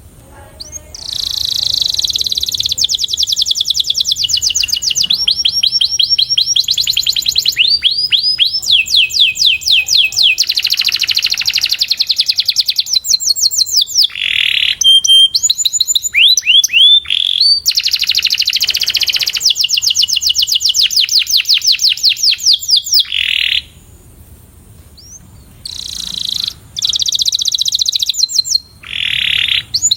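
Canary singing a long song of rapid trills: runs of fast repeated notes and sweeping phrases, switching from one trill to the next every second or two, with a pause of about two seconds near the end.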